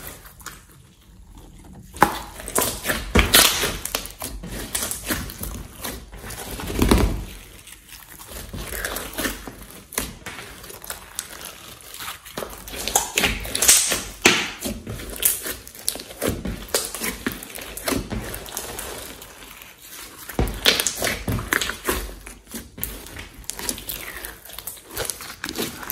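Hands kneading, poking and stretching a large mass of thick slime: irregular squishing with many small sharp clicks and pops as air pockets in it burst, quieter for the first couple of seconds.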